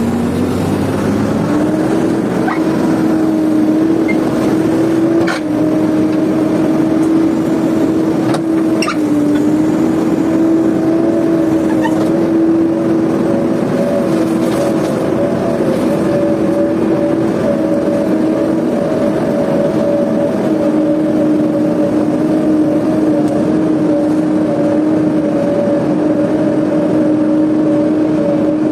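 JCB backhoe loader's diesel engine revving up over the first couple of seconds and then held at high revs under load as its bucket pushes a loaded truck up a steep dirt slope, with slight dips in pitch twice early on.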